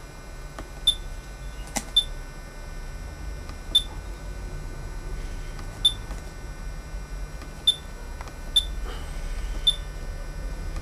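Front-panel menu buttons of an ATTEN ADS1000 digital storage oscilloscope pressed one after another, each press giving a short click with a brief high key beep, about seven times at irregular intervals. A low steady hum runs underneath.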